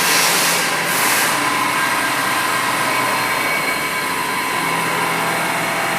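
CNC milling machine running steadily, with several steady machine tones; a pulsing hiss in the first second or so fades out.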